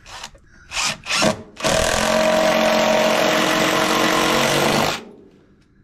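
Cordless power driver sinking a long screw into wooden floor framing: a few short blips, then one steady run of about three seconds that stops suddenly.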